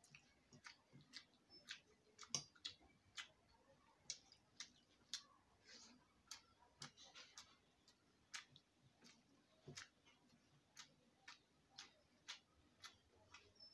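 Faint, sharp mouth clicks of a person chewing rice and curry, coming about twice a second with a few short pauses.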